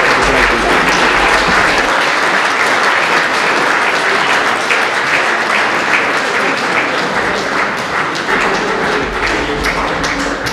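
Sustained applause from many people clapping, dense and steady, beginning to die down near the end.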